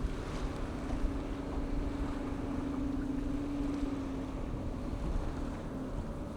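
A motorboat engine drones steadily on the river, fading out about four and a half seconds in, over a low rumble of wind on the microphone.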